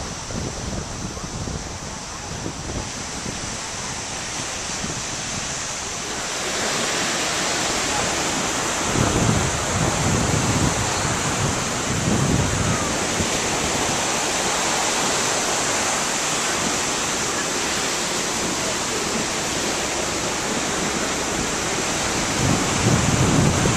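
Ocean surf washing onto a sandy beach as a steady hiss, with wind buffeting the camera microphone. It gets louder about six seconds in, and low gusty rumbles come through several times.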